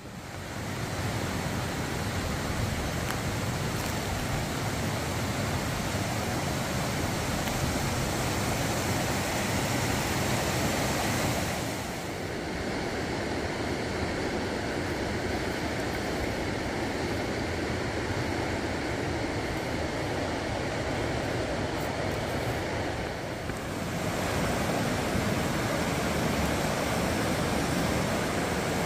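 Steady rushing noise of water outdoors at night, with no distinct events. It shifts in tone about twelve seconds in and again near twenty-four seconds.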